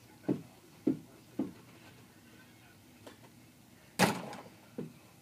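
Rubber ball bouncing on a carpeted floor, three dull thuds about half a second apart. After a pause, a loud knock as the ball drops into a plastic bucket, with a smaller knock just after.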